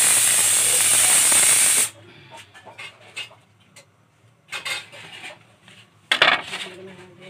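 A loud steady hiss that cuts off abruptly about two seconds in. After it come faint scrapes and taps of hands and a knife on a ceramic plate as a cake is cut, with a louder scrape about six seconds in.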